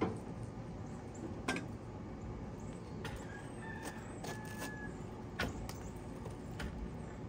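Steel poker stirring the ash and coal bed in the firebox of a Central Boiler Classic outdoor wood boiler. Scattered scrapes and sharp metal knocks come about every second over a steady low background noise.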